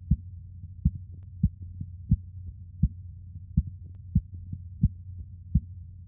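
Korotkoff sounds, blood pulsing through an artery below a deflating blood pressure cuff: sharp, regular taps, about three every two seconds, over a steady low hum.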